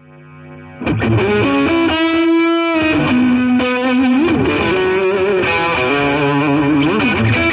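Intro music: a rock track with distorted electric guitar playing sustained, bending lead notes. It fades in, then comes in at full level about a second in.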